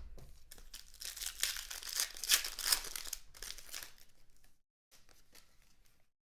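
A 2016 Panini Contenders football card pack's wrapper being torn open and crinkled, loudest two to three seconds in. Fainter rustling follows briefly near the end.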